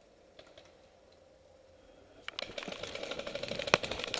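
A few faint clicks, then about two seconds in a sudden rapid clatter of paintballs smacking against the wall close overhead, many hits a second, with one loud crack near the end.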